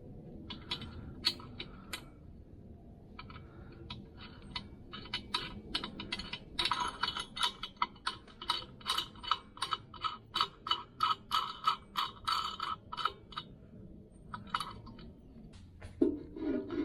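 Hand tool working metal mounting hardware: a run of sharp metallic clicks, about two a second and loudest through the middle. Guitar music comes in near the end.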